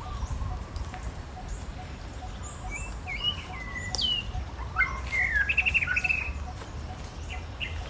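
Several short, high chirping and whistling calls, busiest in the middle with a quick trill, over a steady low rumble.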